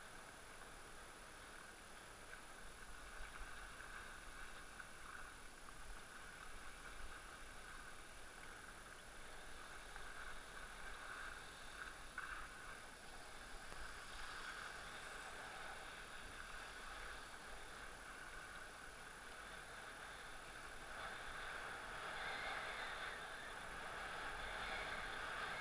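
Skis sliding over packed, tracked snow: a steady faint hiss that grows louder over the last few seconds.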